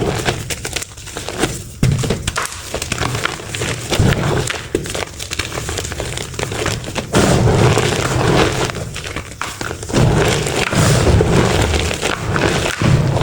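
Dry pressed powder blocks ('reforms') being crushed and crumbled: a dense run of crunching with many small sharp cracks, louder from about seven seconds in.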